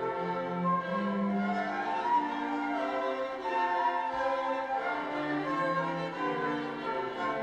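Symphony orchestra playing a slow, sustained passage led by bowed strings, violins and cellos holding long notes.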